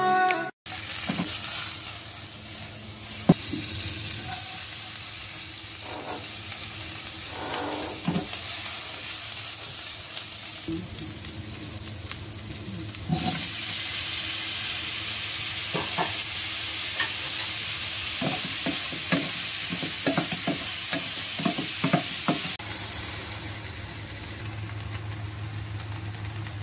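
Food sizzling as it fries in a pan, a steady hiss, with short knocks and scrapes of a utensil against the pan that come thicker past the middle.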